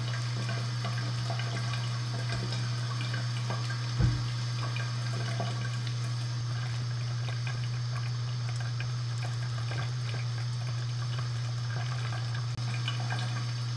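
Water running steadily from a tap, an even hiss over a low hum. A single knock sounds about four seconds in.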